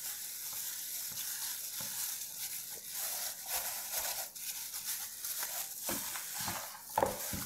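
Hands in thin plastic gloves rubbing dry spices into a raw whole chicken in a bowl: a steady, uneven crinkling rustle, with a couple of soft knocks near the end.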